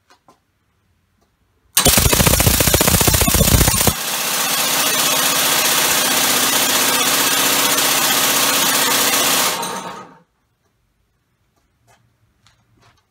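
Homemade six-cylinder, two-plate compressed-air engine run on two of its cylinders. About two seconds in it starts with a loud, rapid pneumatic chatter. About four seconds in this changes to a steady rushing hiss with a hum at speed. It dies away about ten seconds in.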